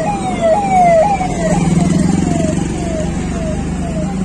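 A siren-like electronic tone that jumps up and slides down in pitch, repeating about twice a second and fading toward the end, over the steady low run of a Yamaha FZ25 motorcycle engine that swells briefly in the middle.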